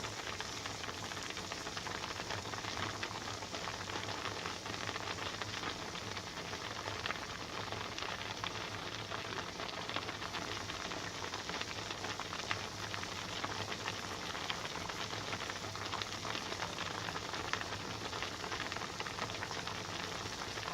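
Pot of pasta water at a rolling boil, a steady dense bubbling and crackling, with a low steady hum beneath.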